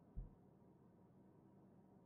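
Near silence: a faint steady hum, with one brief low thump just after the start.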